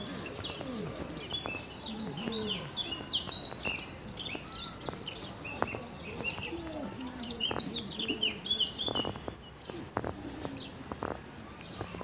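A chorus of small birds chirping and twittering in quick, overlapping calls, thinning out about two-thirds of the way through. Footsteps crunch on a gravel dirt path underneath.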